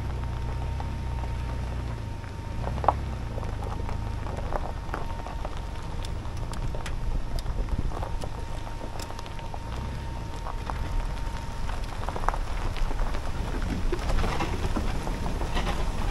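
Pickup truck engine running at low speed, a steady low rumble under a crackling noise with scattered clicks, and one sharp knock about three seconds in.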